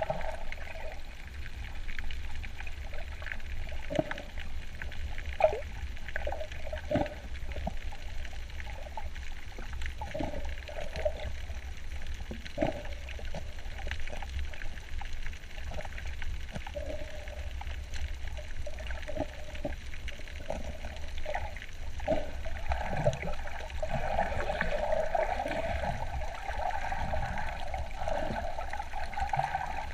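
Water heard from under the surface while snorkelling: a steady low rumble with gurgling and trickling water, scattered sharp clicks, and a louder stretch of gurgling in the last few seconds.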